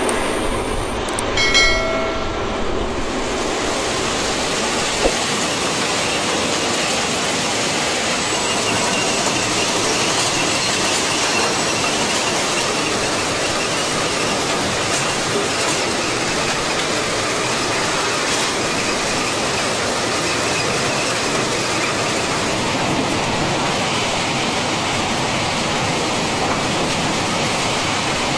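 Track-renewal train working: a steady, loud rumble and clatter of heavy rail machinery, with a brief high-pitched squeal about two seconds in.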